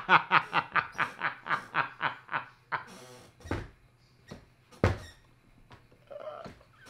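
A man laughing hard in a quick run of rhythmic bursts, about four or five a second, that fade out after a couple of seconds into scattered breaths. A sharp thump comes about five seconds in.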